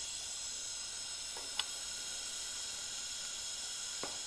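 Steady hissing sizzle of a DC TIG arc on stainless steel, a fusion weld with no filler wire from a Miller Maxstar 150 STL at about 55 amps, with argon flowing through the torch cup. Two faint ticks come from the cup being walked along the edge of the joint.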